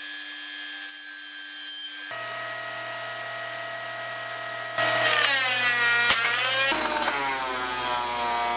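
WEN benchtop thickness planer running with a steady motor whine. About halfway through it gets louder as the board starts through the cutterhead, and the whine dips and recovers in pitch under the load of the cut, with one sharp click.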